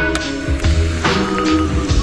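Music with a steady beat, about two beats a second, over a bass line and held tones.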